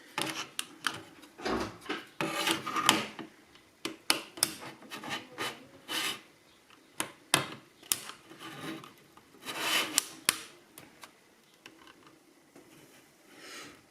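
BMW instrument cluster's plastic housing being worked open: irregular scraping with many sharp clicks.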